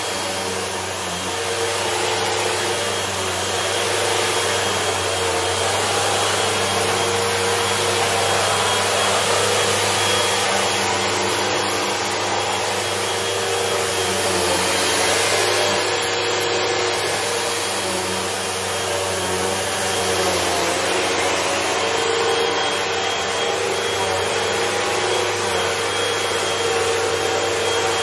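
Upright vacuum cleaner running on a rug: a steady motor hum under a rush of air that swells and fades every few seconds as it is pushed back and forth.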